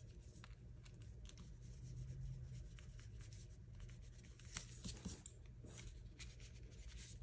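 Faint scratchy rubbing of a pencil's eraser on cardstock as pencil guide lines are erased, with a few small ticks of the pencil against the paper.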